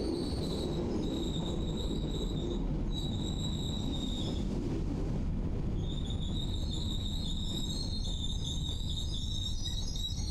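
Narrow-gauge train running with a steady low rumble, its wheels squealing in long high-pitched stretches that break off and return several times, the longest from about six seconds in.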